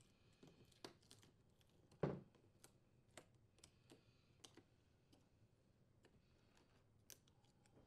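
Faint crinkling and small clicks as a foil-wrapped ice maker fill tube heater is peeled off the plastic fill tube, with one louder knock about two seconds in.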